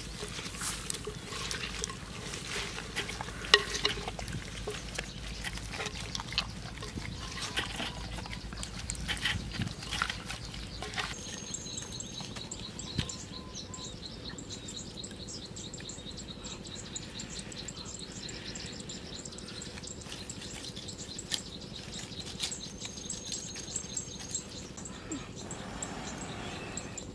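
Wet squelching and crackling of hands packing a whole duck with herbs and chillies in a clay pot of broth, with many small clicks and slaps. About eleven seconds in this gives way to a quieter outdoor background of steady high insect chirring. Near the end there is a soft rush of breath blown onto a smouldering fire.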